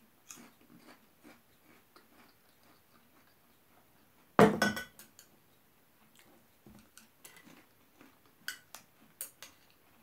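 Metal chopsticks clicking and scraping against a bowl, with quiet chewing. A little before halfway there is one louder clatter with a dull thud, as the bowl is set down on the table. A few sharp clicks follow near the end.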